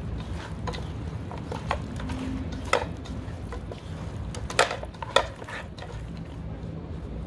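Chopped raw chicken being mixed by a gloved hand in a metal pot: irregular soft knocks and clicks of the pieces against the pot, the sharpest three near the middle, over a steady low hum.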